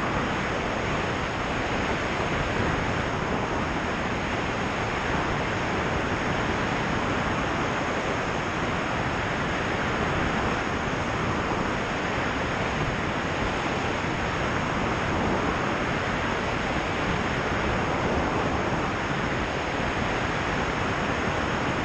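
Steady rush of slipstream over a camera mounted outside a sailplane in soaring flight: an even wind noise with no engine note.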